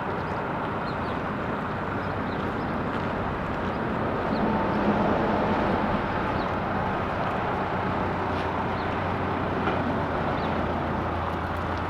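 A vehicle engine running steadily, with a few faint clicks over it.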